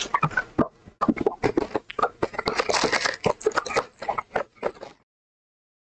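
Foil-wrapped trading card packs crinkling and a cardboard hobby box rustling as the packs are handled and lifted out, a quick run of irregular crackles that stops about a second before the end.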